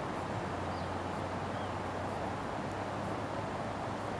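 Steady outdoor background noise with a low hum underneath, and a couple of faint short high chirps.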